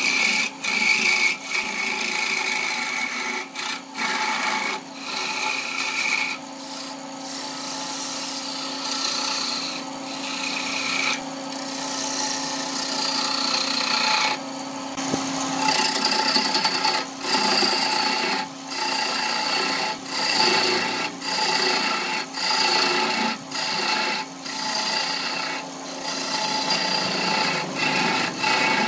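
Wood lathe turning a wooden workpiece while a hand-held turning tool cuts it, a continuous rough scraping of the cut over a steady hum. The cutting noise drops out briefly every few seconds.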